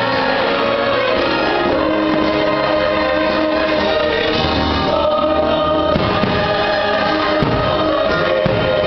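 Choral music, a choir singing held notes over an orchestra: the fireworks show's soundtrack. Low booms of shells bursting come through in the second half.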